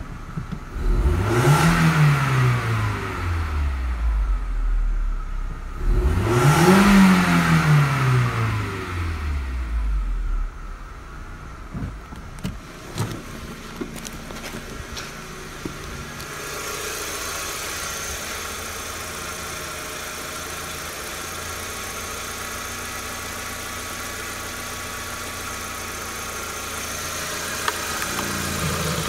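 VW Passat B5's 1.6-litre AHL four-cylinder petrol engine revved twice, about five seconds apart, each time rising quickly and falling back. It then idles steadily, and in the second half it is heard close up from the engine bay, with more high-pitched mechanical noise.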